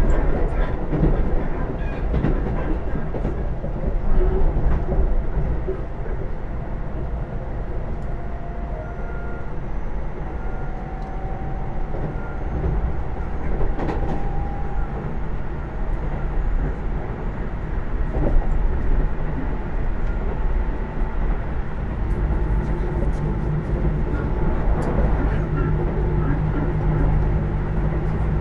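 Keisei AE100 electric train running, heard inside the passenger car: a steady rumble of wheels on rail with scattered faint clicks.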